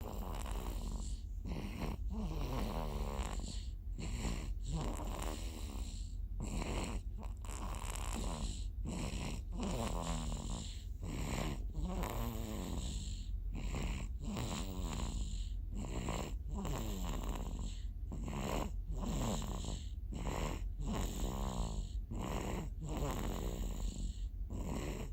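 Quick, regular snoring in the sleep of someone who dozed off while drinking, about one snore a second with a wavering pitch.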